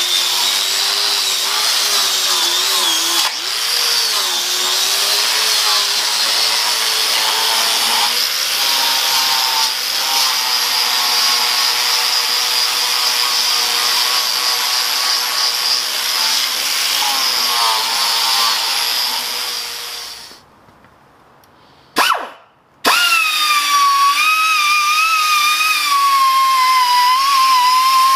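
Electric angle grinder running with a Norton Rapid Strip wheel pressed against a cast iron lathe faceplate, its whine wavering in pitch as the wheel is worked over the surface. It stops about twenty seconds in, and soon after an air grinder starts up and runs steadily on the faceplate's threaded bore.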